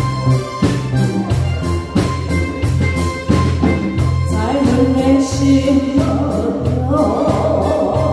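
Song accompaniment with a steady drum beat and bass line; a woman starts singing into a microphone about four seconds in, holding long notes.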